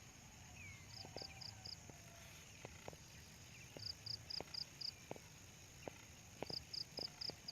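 Faint high chirping from a small animal in the open: three runs of four or five short, evenly spaced notes, with a few faint ticks in between.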